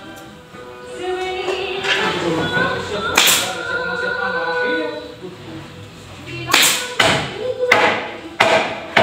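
Background music with singing, with a staple gun firing into dark padded material: a sharp snap about three seconds in, then four more in the last two and a half seconds.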